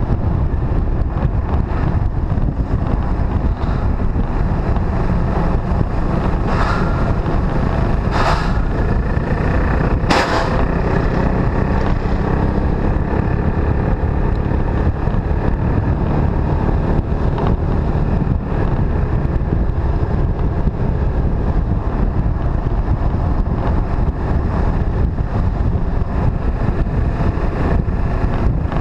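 Motorcycle riding at road speed: steady engine and road rumble under heavy wind noise buffeting the microphone, with a few brief sharp crackles about seven to ten seconds in.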